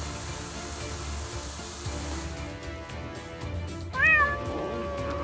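A steady hiss and low rumble, then about four seconds in a sudden loud, distorted cat-like meow for the Cartoon Cat creature. It bends up and down, then draws out into one long held wail.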